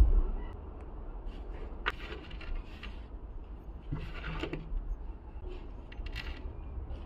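Workbench handling noise: scattered light clicks and scrapes of objects being picked up and set down, over a low steady hum, with a dull thump at the very start.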